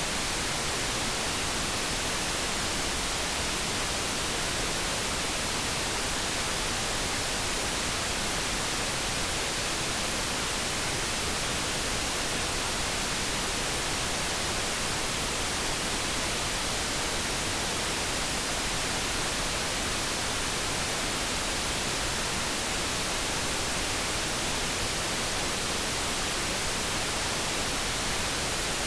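Steady synthetic noise used as a focus background: an even, unchanging hiss with no tones or events in it.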